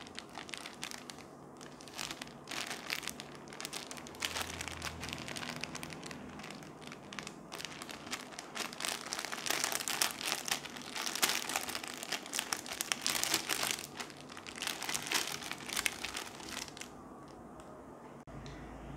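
Thin clear plastic bag crinkling and rustling in irregular bursts as hands slide a plush panda sleep mask out of it; the crinkling dies away shortly before the end.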